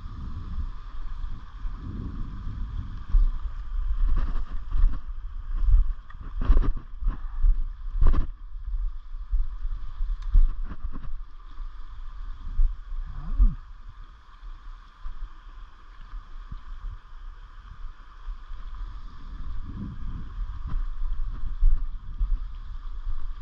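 Riverside ambience of steady flowing water, with gusty rumbling wind noise on the microphone and a few sharp knocks around six and eight seconds in.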